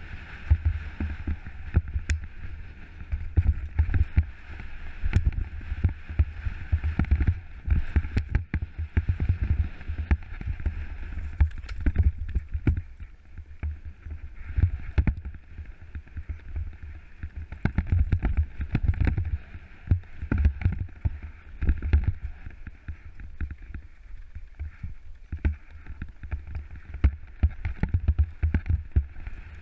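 Scott Gambler 10 downhill mountain bike bouncing down a rocky trail at speed: the rattle and sharp knocks of the bike over rocks and roots, under a heavy wind rumble on a helmet-mounted microphone.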